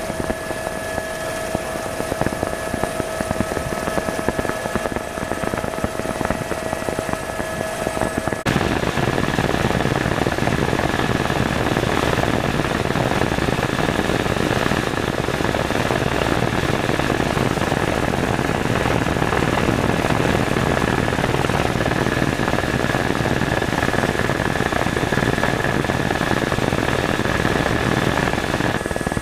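Tour helicopter's engine and rotors running steadily, a dense drone with a few high whining tones. About eight seconds in the sound changes abruptly and becomes fuller and slightly louder, with a steady low hum.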